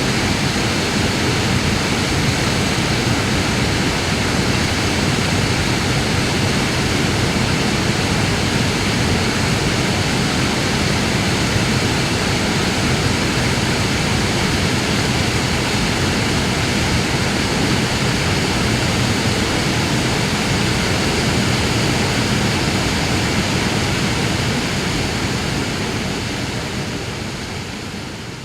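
Waterfall: a steady, even rush of falling water, fading out over the last few seconds.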